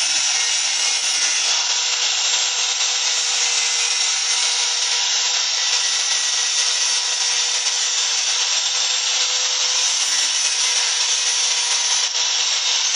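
Electric angle grinder running at a steady pitch, a thin metal spoon handle held against its spinning abrasive disc and ground with a continuous hiss.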